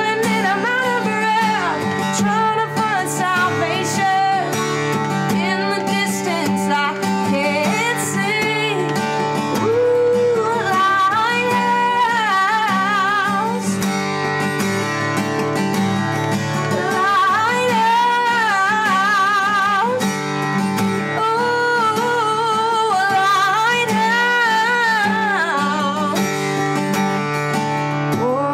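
A woman singing an original folk song to her own acoustic guitar accompaniment, her held notes wavering with vibrato.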